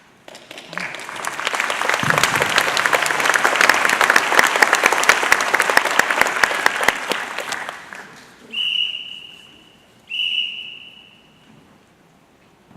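Audience applauding for several seconds, then dying away, followed by two separate whistle blasts of about a second each.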